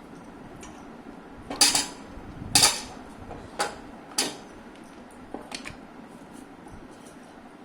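Hard objects clattering and knocking: two loud clatters about a second and a half and two and a half seconds in, then a few lighter knocks.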